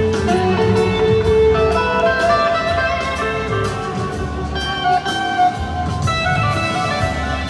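Live rock band playing an instrumental passage: sustained electric guitar lines over drums with an even cymbal beat, heard from the audience in an arena.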